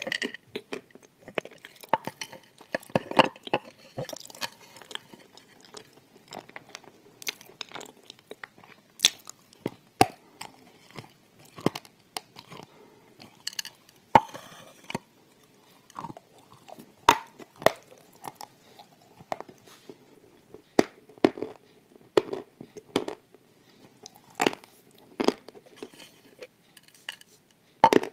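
Close-miked biting and chewing of Turkestan wafer slabs: irregular sharp, crisp crunches throughout, with quieter chewing between them.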